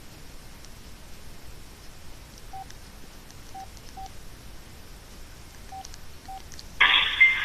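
Casio G'zOne Ravine cell phone: five faint short key beeps, then about seven seconds in, a ringtone starts playing loudly through the phone's small speaker.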